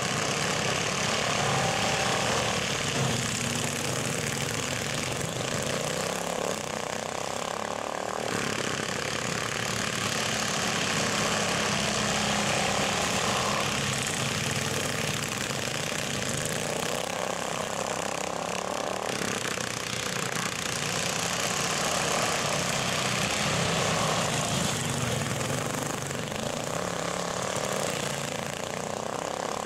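Several racing garden tractors' small engines running hard around a dirt track, the engine note shifting and the sound swelling a little as the machines pass.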